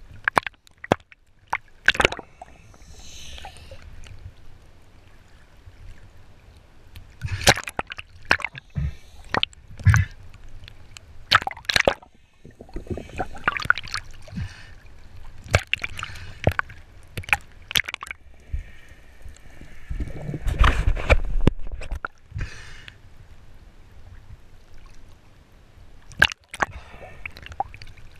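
Seawater sloshing and splashing around a camera held at the surface, with irregular sharp splashes and knocks as a speared white seabass is handled in the water. A louder, deeper rushing stretch comes about two thirds of the way through.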